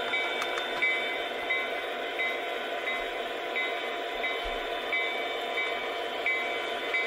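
Lionel Legacy SD70ACE O-gauge model diesel locomotive running along its track, its onboard sound system playing a steady diesel engine sound, with a light double click repeating about every 0.7 seconds.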